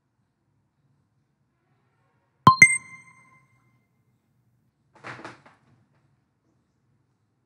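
Quiz answer-reveal sound effect: a quick two-stroke bright ding with a short ring, marking the correct answer. About two and a half seconds later comes a brief, softer burst of noise.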